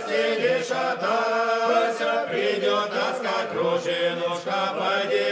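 A choir singing a slow chant, several voices held on long, slowly shifting chords.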